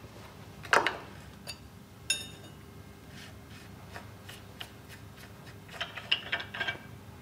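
Scattered light clicks and clinks of small hard objects being handled, some with a brief ringing tone, the loudest about a second in and a quick cluster near the end, over faint room tone with a weak steady hum.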